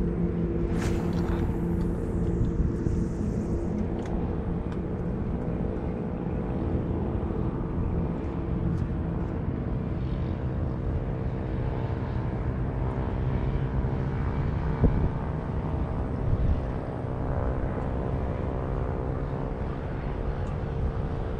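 A steady engine drone holding one pitch throughout, like a motor running at constant speed, with one short knock about fifteen seconds in.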